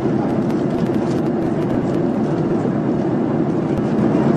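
Steady aircraft cabin noise in flight: a constant low hum of engines and rushing air heard from inside the cabin.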